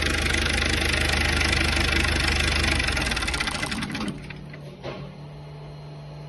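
Rebuilt Perkins 1004.4T four-cylinder turbo diesel running, then shut off about three to four seconds in, its beat dying away. A steady low hum remains afterwards.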